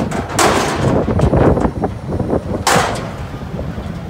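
McNeilus front-loader garbage truck on an Autocar chassis dumping a dumpster of cardboard: the raised container crashes and clatters twice, about half a second in and again a little before three seconds, with smaller knocks throughout over the truck's running engine.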